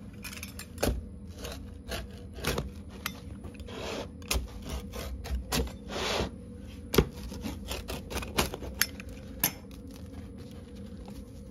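Crisp pizza crust crunching and crackling as a blade cuts through it, in many sharp cracks with two longer rasping strokes about four and six seconds in.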